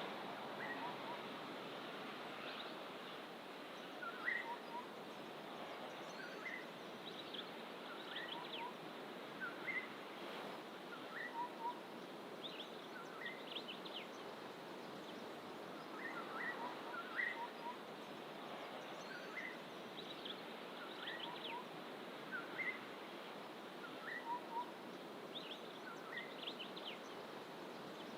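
Several wild birds calling in fynbos bush: short chirps repeated every second or two, and every few seconds a quick cluster of high notes. Under them runs a steady rush of distant ocean surf.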